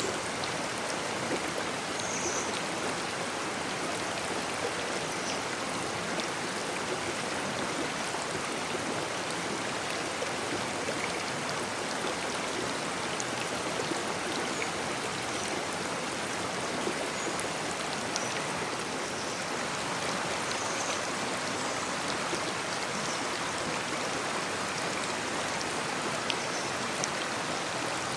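Babbling brook: a steady, unbroken sound of running water.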